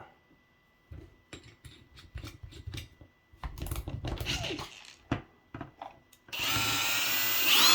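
Clicks and rattles of handling, then about six seconds in an electric drill starts and runs steadily, its whine rising in pitch near the end, as a 27/64-inch bit enlarges a hole that is still too small.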